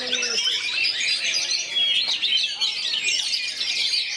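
Many caged songbirds, Oriental magpie-robins among them, singing at once: a dense, unbroken chorus of overlapping high chirps and whistles. A brief low steady tone fades out about half a second in.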